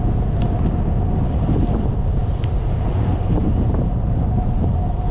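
Wind buffeting the microphone of a camera riding along on a moving bicycle, a steady low rush, with a thin steady whine and a few sharp ticks and rattles from the bike.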